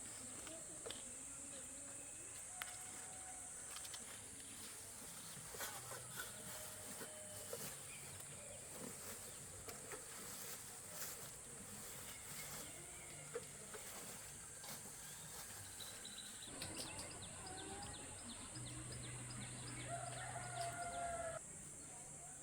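Steady high-pitched insect drone with chicken calls, the loudest about twenty seconds in, and scattered small clicks and knocks.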